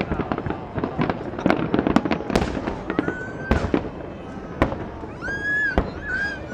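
A fireworks finale: a rapid, continuous string of aerial shell bursts, with booming reports and crackling. About halfway through, and again near the end, high held whooping cries rise above the bursts.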